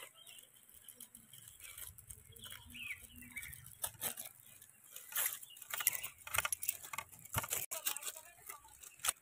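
Plastic instant-noodle wrappers crinkling and crackling as the packets are handled and opened. The crackles get busier about halfway through.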